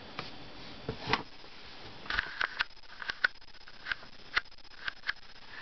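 About a dozen light, irregular clicks and taps on a plastic toy nightlight's back casing as its screws are taken out and the case is handled.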